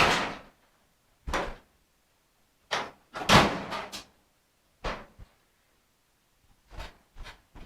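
The steel hood of a 1957 Chevy being closed and pressed down while its fit is checked: a string of about seven separate metal clunks, the loudest and longest about three and a half seconds in.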